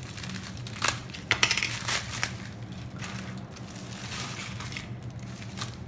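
Hands crinkling and tearing open a thin silvery plastic mailer pouch, with a few sharp crackles in the first couple of seconds.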